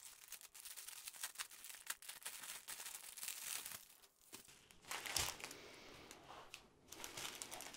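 Plastic shrink wrap being torn and crinkled by hand as a wrapped bundle of diamond painting drill bags is opened, a faint crackle of plastic with a soft thump about five seconds in.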